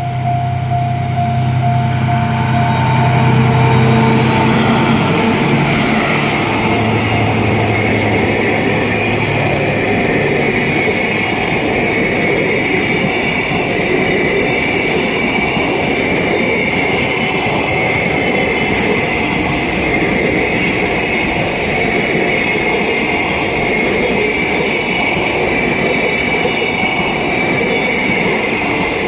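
DF200 diesel-electric locomotive passing slowly with its engine hum for the first ten seconds or so, then a long string of freight wagons rolling by with a steady rumble of wheels on rail. A steady high-pitched squeal runs over the wheel noise.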